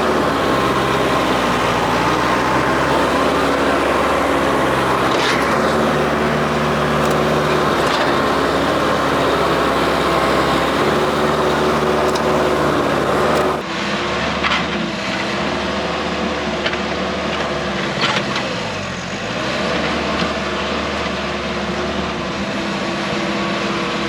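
New Holland WorkMaster 55 tractor's diesel engine running hard under load, its pitch rising and falling with the throttle, with a few sharp cracks and knocks.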